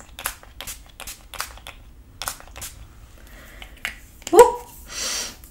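Pump-action setting spray misting the face: a fast run of about ten short hisses in the first two seconds. About four seconds in comes a short, loud voiced sound, then a breathy exhale.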